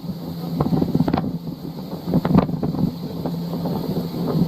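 Wind buffeting the microphone over a steady low hum, with a few sharp knocks.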